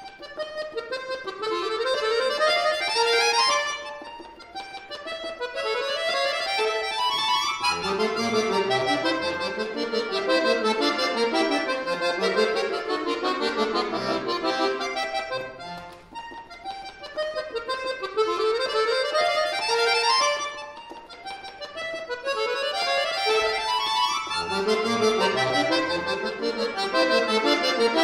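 Chromatic button accordion played solo: a fast virtuoso piece with quick runs climbing up the keyboard again and again, between denser passages of chords.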